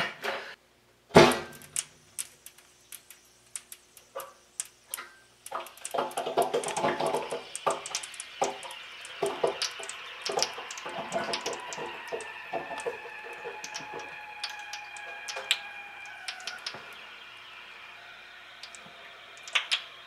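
Irregular knocks and clunks as the garden hose on an electric water heater's open drain valve is handled. Under them runs a hiss of water draining out of the tank through the hose, with faint tones that slowly fall in pitch and fade toward the end.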